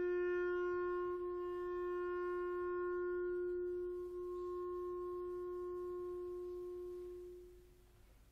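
Solo clarinet holding one long, steady note with no accompaniment, with two slight breaks about one and four seconds in, then fading away near the end.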